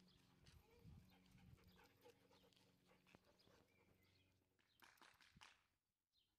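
Very faint panting and small scuffling sounds from German Shepherd dogs and puppies, close to silence.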